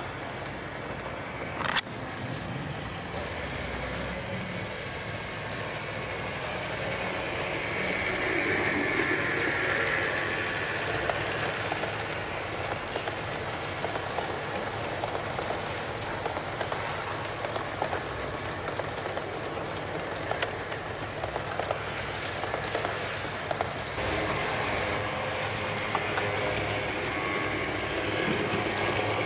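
HO-scale model train running on the layout's track: a steady rolling rumble with scattered clicks of the wheels over rail joints. There is a sharp click about two seconds in, and the sound swells for a couple of seconds around the middle as the train passes close.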